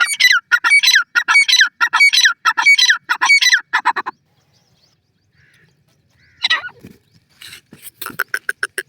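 Grey francolin (teetar) calling: a loud run of harsh, repeated notes for about four seconds. After a short pause comes one more call, then a quick series of short clicking notes near the end.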